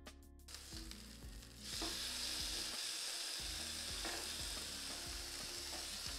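Chicken frying in a pan on low heat, a steady sizzle that grows much louder a little under two seconds in. Background music plays faintly underneath.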